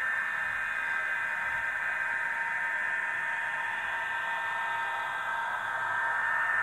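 Liliput H0 model of a Stadler KISS double-deck electric train running on its track: a steady whirring hiss with a thin constant whine, from the model's drive and its ESU sound decoder's running sound through a small speaker. It grows slightly louder near the end.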